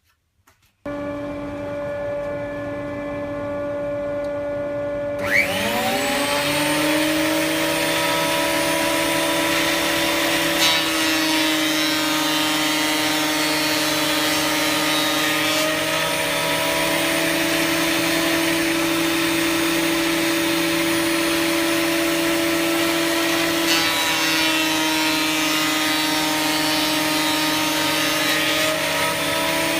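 Dust extraction switches on about a second in, then the Ryobi RAP1500G thickness planer's motor spins up with a rising whine about five seconds in. Both run steadily and loudly, the pitch dipping briefly a few times as timber feeds through the cutter head.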